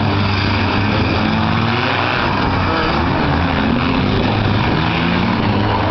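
Four-cylinder demolition derby car engines running and revving, their pitch rising and falling, loud and continuous.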